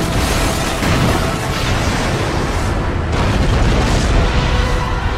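Animated sound effects of a wall bursting apart: a loud, continuous rumbling blast with crashing, flying debris, and faint music beneath.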